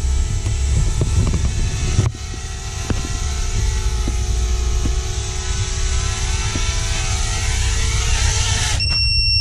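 Small racing quadcopter's motors and propellers running steadily, a broad hiss with a faint hum, until they cut off suddenly near the end. A high, steady electronic beep starts right after.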